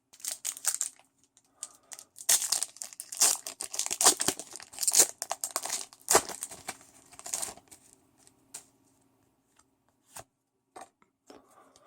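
A Pokémon card booster pack's foil wrapper being torn open and crinkled: dense crackling for about seven seconds, then a few scattered clicks and rustles.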